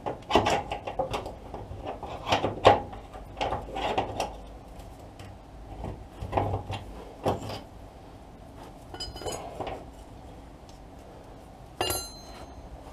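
Hand tools clinking and knocking against metal fittings as a fixing is worked loose: a string of short knocks for the first seven seconds or so, then a quick run of ringing clicks about nine seconds in and a single ringing metallic clink near the end.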